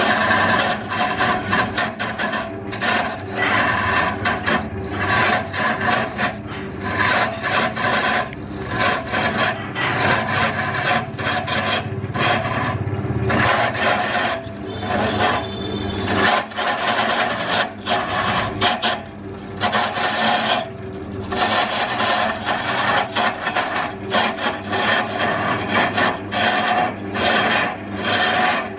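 A gouge cutting a large log spinning on a wood lathe: a continuous rasping, shaving sound as the wood peels away. It swells and dips in repeated passes, with many short breaks where the tool lifts off.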